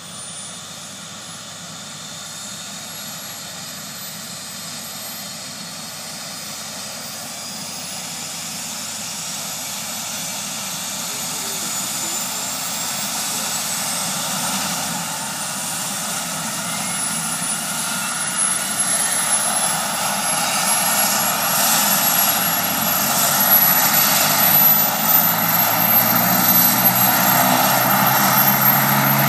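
Medical helicopter's turbine engine spooling up before take-off. A thin high whine rises slowly in pitch as the whole sound grows steadily louder, and a low rotor beat comes in near the end.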